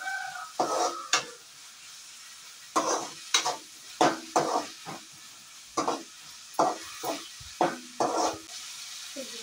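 Metal spoon scraping and knocking against an aluminium kadai in irregular strokes as onions and tomatoes are stirred, over a steady sizzle of the vegetables frying in oil.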